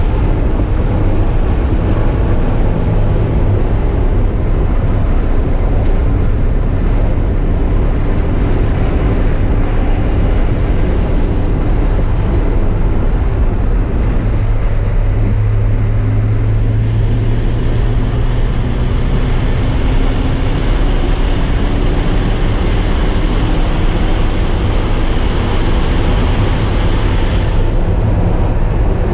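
Porsche 944's four-cylinder engine running hard at speed, its pitch slowly rising and falling with throttle and gear changes, over a constant rush of wind and road noise.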